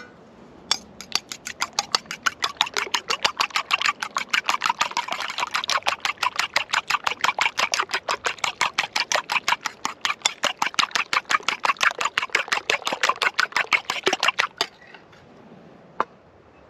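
Table knife beating raw eggs in an enamelware bowl: a fast, even run of clicks as the blade strikes the bowl with each stroke. The clicks stop about two seconds before the end, and one lone tap follows.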